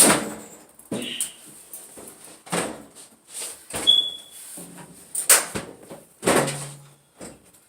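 Clothes dryer parts being handled during disassembly: about six loud knocks and scrapes of metal panels and parts, roughly a second apart, with a brief squeak about four seconds in.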